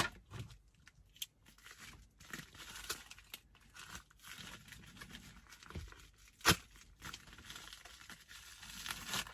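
A package being torn open and its wrapping crinkled: scattered faint rustles and tearing, with one sharp snap about six and a half seconds in.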